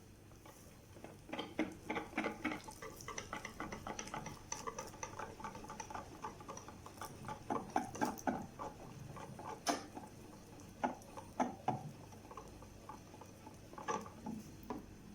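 A utensil stirring and scraping in a dish, with quick light clinks of crockery and cutlery. It is busiest from about a second in until about twelve seconds, then a few more clinks come near the end.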